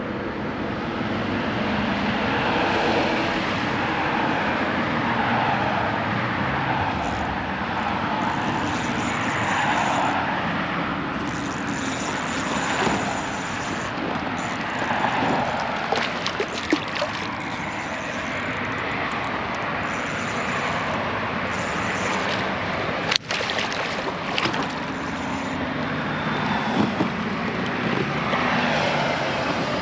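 Steady rushing traffic noise from a nearby road, swelling and easing slowly as vehicles pass. A few light clicks come near the middle, and one sharp knock a little over two-thirds of the way in.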